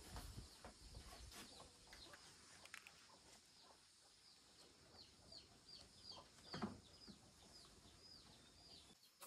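Near silence with a bird's faint, high, downward-sliding peeps repeating about two or three times a second, starting about a third of the way in. There is a soft knock about two-thirds of the way through.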